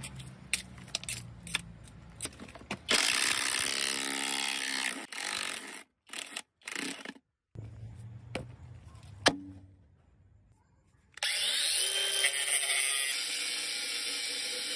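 A run of workshop sounds: scraping and clicking, then a loud steady tool noise. A single heavy sledgehammer blow on steel comes about nine seconds in. For the last few seconds a cordless angle grinder runs, grinding steel and throwing sparks.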